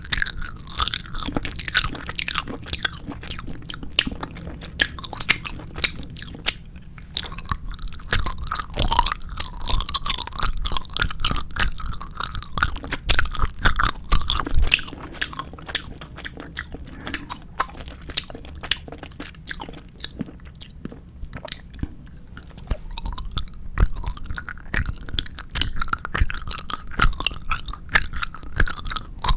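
4D jelly gummy candies being bitten and chewed close to the microphone: a dense, irregular run of sticky mouth clicks and smacks, busier in two stretches.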